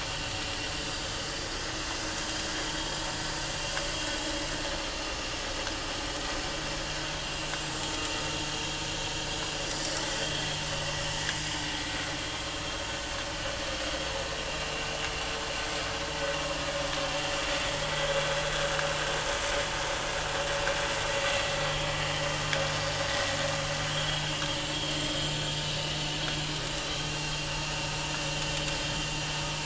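Jakobsen SJ30 surface grinder running under power: a steady electric motor hum with an even hiss, unchanging throughout, with a few faint ticks.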